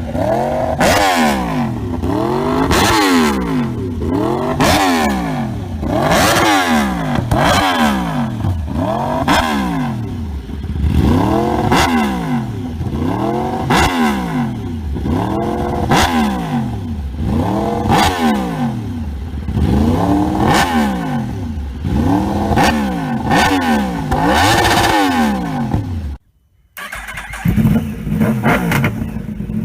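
Yamaha R1 sportbike's inline-four engine revved over and over, its pitch rising and falling about every second and a half. Near the end a brief drop-out is followed by the engine running at a steady speed.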